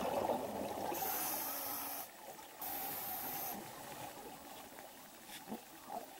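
Scuba diver breathing underwater through a regulator: a gurgling rush of exhaled bubbles, then two hissing breaths of about a second each, after which it quietens.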